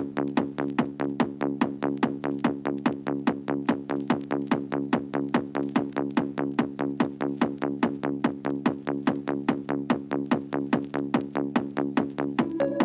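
Electronic dance music played from vinyl in an old-school 'remember' DJ set: a fast, even drum-machine beat under sustained synth chords. A new, higher melodic line comes in near the end.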